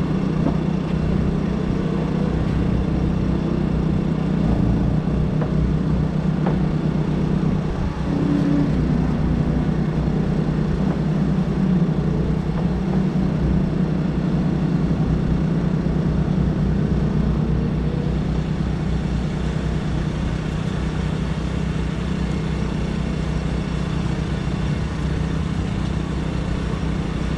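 An engine idling steadily close by. Faint engine notes rise and fall in the background.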